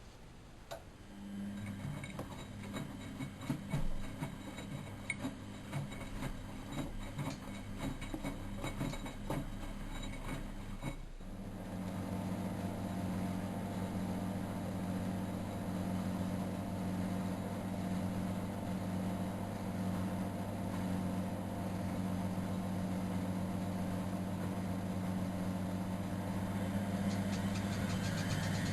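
Miele Novotronic W914 washing machine running: a hum with clattering and rattling for about ten seconds, then a steady machine hum. Near the end a rising whine comes in as it speeds up.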